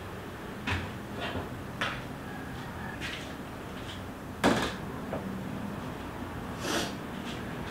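Kitchen handling sounds: a series of short knocks and clicks as containers and utensils are picked up and set down on a table, the loudest a sharp knock about four and a half seconds in.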